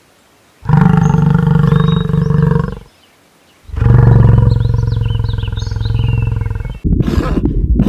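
American bison bellowing: two long, low calls, one after the other with a short pause between them. Near the end the sound changes abruptly to a rough, rapidly pulsing grunt.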